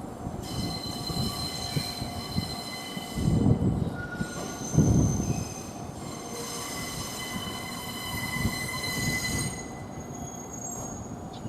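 Electric train's wheels squealing in several high steady tones as it is shunted through the depot tracks. The squeal breaks off briefly midway and dies away near the end, with two heavy low thumps a few seconds in.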